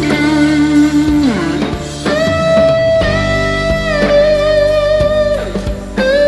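Electric guitar, a PRS SE Silver Sky, playing a lead line through an amp simulator with overdrive. It plays long sustained single notes with bends and vibrato. One note slides down about a second and a half in, and a higher note is held with vibrato for several seconds.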